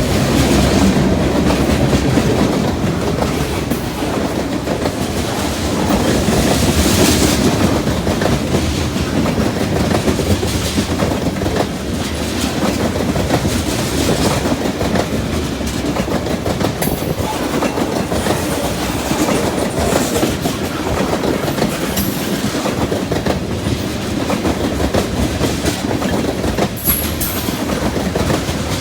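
Freight cars of a CN freight train rolling past, wheels clacking over rail joints in a steady rumble, with a few brief, faint wheel squeals in the last third.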